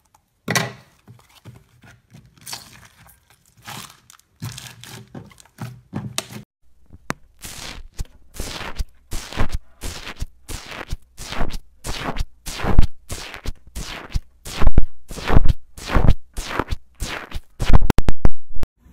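Slime being squeezed and pressed by hand: irregular crackling at first, then a steady run of crunchy pops, about two to three a second, getting louder near the end.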